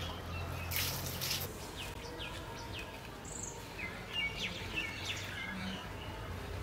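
Small birds chirping: a series of short, quick, falling calls. Under them, faint rustling of hands mixing dry puffed rice in steel plates.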